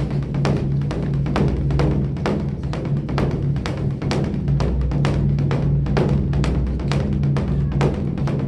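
Large Buddhist temple drum (beopgo) being beaten in a fast, uneven rhythm of several strikes a second, with a steady deep boom underneath.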